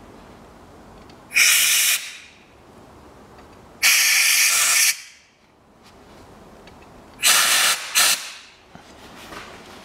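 Compressed-air blow gun blasting into the glow-plug bores to clear the threads before new glow plugs go in. It hisses in four short blasts, each a second or less; the last two come close together near the end.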